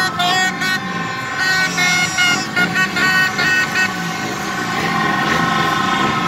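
Many vehicle horns and plastic trumpet horns tooting together from a street crowd of motorbikes, in short repeated toots for the first few seconds, then longer held blasts, over the running of motorbike engines.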